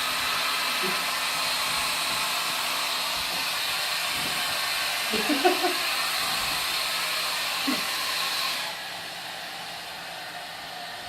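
Handheld hair dryer blowing with a steady whooshing hiss, turning noticeably quieter about nine seconds in.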